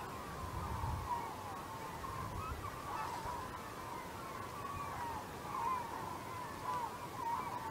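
A large flock of gulls calling together, a dense chorus of many short overlapping calls with no pause.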